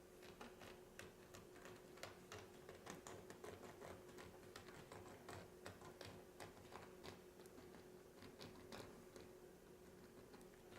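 Faint, irregular light taps and clicks, several a second, from a paint pen marking lines on a rubber stall mat; they stop near the end, leaving a faint steady hum.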